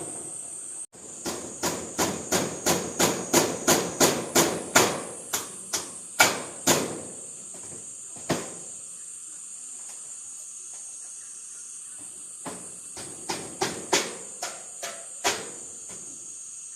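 A tool striking over and over: sharp knocks about three a second for several seconds, then a few scattered blows and a short cluster near the end. Crickets chirr steadily underneath.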